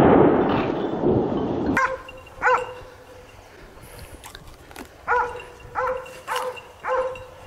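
Hunting dogs barking, six short sharp barks at uneven intervals, with a loud rumble fading out at the start before the first bark.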